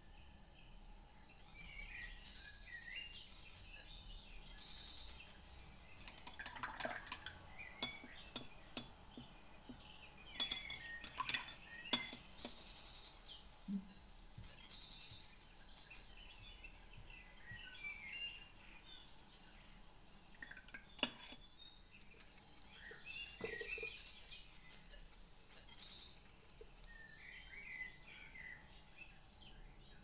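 Small songbirds chirping and trilling in quick high phrases throughout. A few light clinks and taps stand out, the loudest twice around the middle and once later on.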